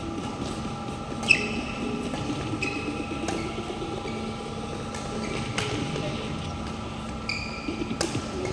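Badminton rally: about four sharp racket hits on the shuttlecock, roughly two seconds apart, with short sneaker squeaks on the court floor. A steady hall hum runs underneath.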